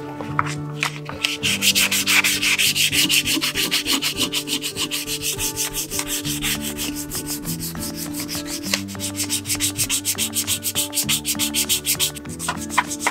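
Rapid back-and-forth rubbing strokes by hand on a bicycle crank arm, about five strokes a second, as the cranks are worked toward a mirror polish.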